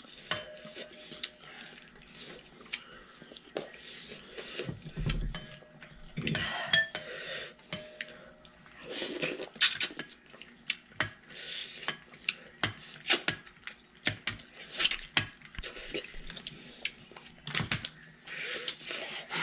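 Two people eating pieces of local rooster curry by hand: close-up chewing and biting sounds, with many scattered sharp clicks throughout.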